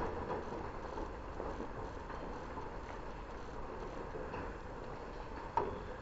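Toucans' bills and feet knocking and tapping on a wooden feeding table, with one sharper knock near the end, over a steady outdoor hiss.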